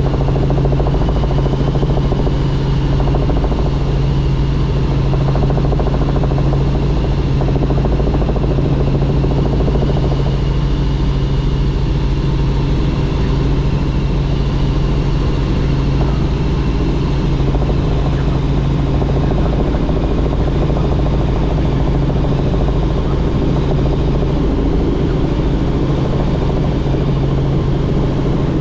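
Helicopter in flight: the engine and rotor make a steady, loud drone, a strong low hum with a fainter high whine above it.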